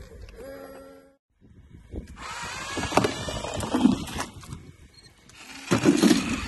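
Motorized toy bulldozer's small electric motor whirring and its plastic tracks clattering on a plastic slide, in two bursts, the second near the end. A steady hum-like tone stops about a second in, before the motor sound starts.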